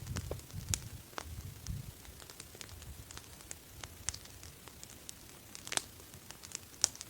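A 'candle' campfire (a standing split log burning) crackling, with irregular sharp pops scattered throughout. A low rumble sits under the first two seconds.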